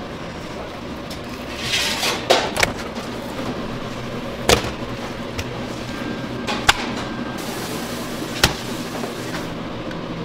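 Raw pork belly being cut and handled on a plastic cutting board: about five sharp, spaced-out knocks and taps of knife and meat on the board, and a brief rustle about two seconds in, over a steady kitchen hum.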